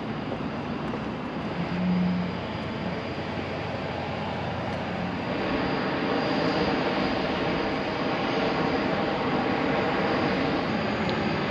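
A steady mechanical drone over an outdoor rush, growing louder and fuller about halfway through, with a brief low hum about two seconds in.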